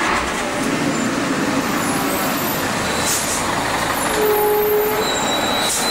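Road vehicle noise, steady and close, with a short hiss about three seconds in and again at the end.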